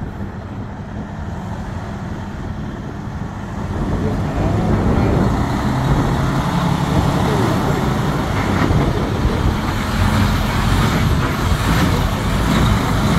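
Tractor-trailer's diesel engine running as the truck pulls slowly forward toward and past the listener, growing clearly louder about four seconds in.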